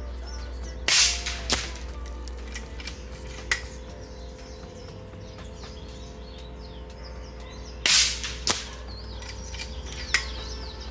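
Vulcan PCP air rifle firing 40-grain Zan slugs at about 1,030 fps: two sharp shots about seven seconds apart, each followed about half a second later by a second, shorter crack. Birds chirp near the end.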